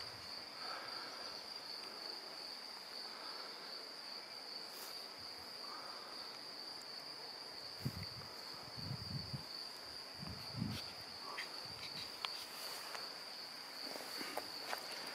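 An insect's continuous high-pitched trill, steady and unbroken. A few soft low thumps come about eight to eleven seconds in, and a few sharp clicks near the end.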